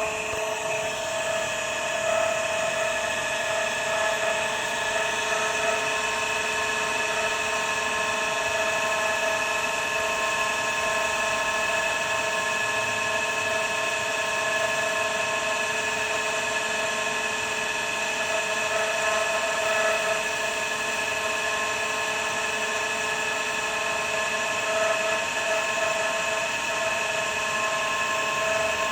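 Water pressure booster pump motor running with a steady high-pitched whine made of several tones held level, over a rushing hiss. It is extremely loud, and the whine is the abnormal noise the owner is complaining of.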